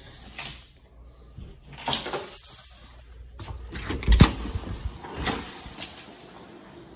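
Rustling, scuffing and clicks of a handheld phone being carried while walking, with one heavy thump about four seconds in.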